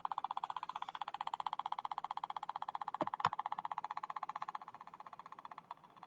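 Solfeggio tone generator playing the 7.83 Hz Schumann resonance: a mid-pitched tone pulsing evenly about eight times a second, heard as a rapid clicking, a little quieter after about five seconds. Two short knocks about three seconds in.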